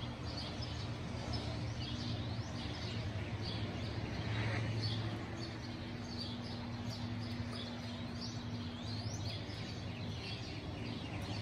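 Several songbirds chirping and singing, many short overlapping calls and quick whistled glides, over a steady low hum.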